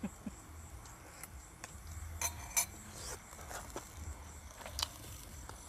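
Faint scattered clinks and taps of spoons and utensils against bowls as people eat, over a low steady hum.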